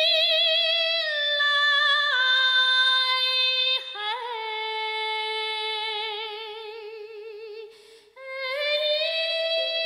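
A female soprano voice sings long held notes with a wide vibrato and little accompaniment. The pitch steps down twice in the first two seconds, slides into a lower note about four seconds in, fades and breaks off briefly near eight seconds, then climbs back up.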